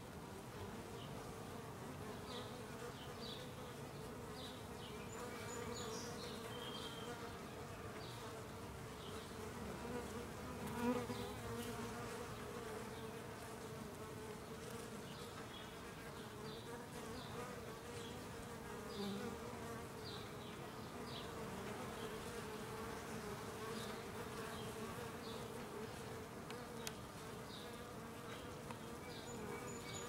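Honeybees buzzing at a hive entrance: a steady hum of many wings, with one brief louder swell about a third of the way in.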